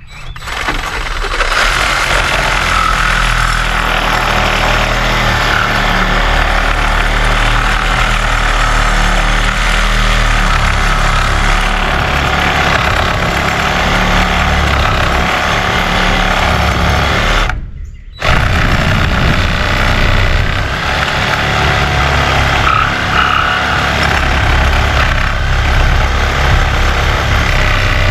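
Cordless reciprocating saw cutting through a wooden railing post. It runs steadily, stops for a moment a little past halfway, then starts again and carries on cutting.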